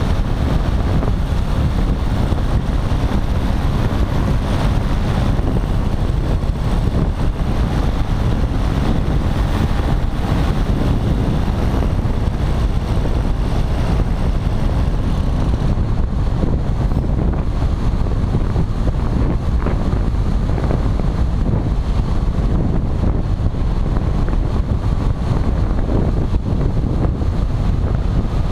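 Wind buffeting the microphone of a camera mounted on a paramotor in flight, a loud steady rumble. The higher hiss drops away about halfway through as the paramotor descends toward landing.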